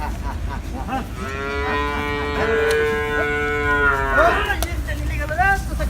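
Cow mooing: one long, steady moo of about three seconds starting about a second in, followed by a couple of short calls.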